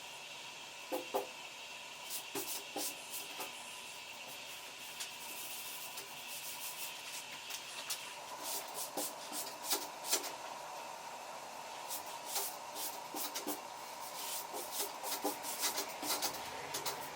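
Sandpaper rubbed in short, irregular strokes across body filler on a steel truck door, with a faint steady tone underneath.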